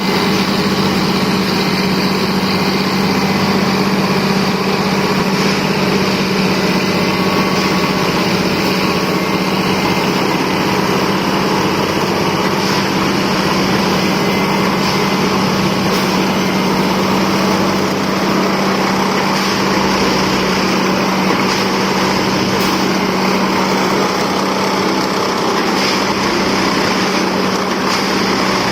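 Railway ballast tamping machine (CSM Duomatic) working, its engine and hydraulics running steadily with a constant hum.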